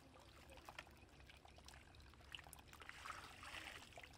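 Faint trickling and splashing of muddy water poured from a green plastic basket into a bucket, with small drips and knocks, a little louder about three seconds in.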